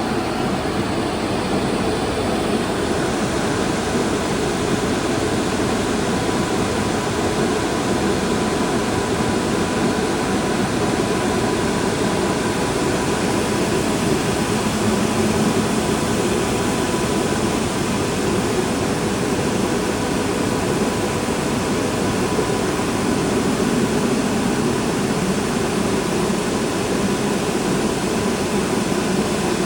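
Polyglass LV1500 vertical glass washing machine running: a steady mechanical hum and rushing hiss with a faint constant tone, unchanging throughout.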